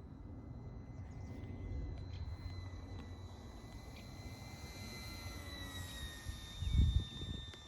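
Motor and propeller of a radio-controlled Hobby King Hurricane model plane in flight: a thin steady whine that drops in pitch about five and a half seconds in, over wind rumble on the microphone, with a brief gust near the end.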